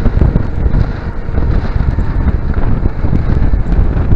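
Wind buffeting the microphone of a handlebar-mounted camera on a moving bicycle: a loud, uneven low rumble with faint light ticks.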